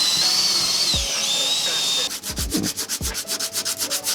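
Rust being sanded off a car body panel with a power tool. Its whine dips under load, and about halfway through it changes to a fast rhythmic rasping of about eight strokes a second.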